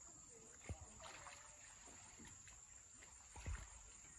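Near silence with faint sloshing of pond water from people wading waist-deep, and two soft low thumps, one under a second in and one about three and a half seconds in.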